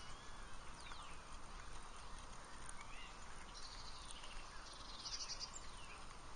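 Birds singing and calling: a couple of fast, high trilled phrases and several sweeping whistled notes over a steady faint outdoor hiss.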